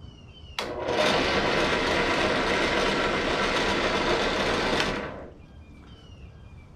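Harbor Freight benchtop drill press switched on with a click, its motor and belt-driven spindle running steadily at the top speed setting for about four seconds, then switched off and spinning down quickly.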